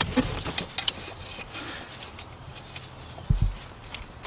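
Socket and ratchet being worked onto a bolt in an engine bay: scattered light clicks and knocks of the tools, with one low thump a little over three seconds in.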